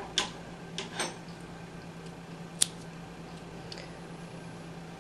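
Hands handling yarn and a crocheted piece: a few short rustles and soft knocks, with one sharp click about two and a half seconds in, over a low steady hum.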